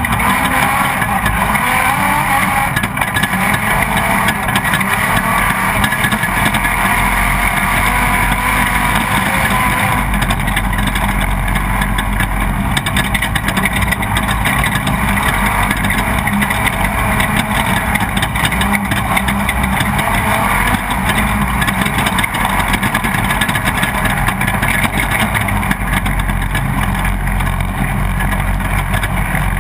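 Off-road race truck's engine running hard at racing speed, heard from onboard, its pitch rising and falling with the throttle. It runs under a constant dense haze of wind and rattling.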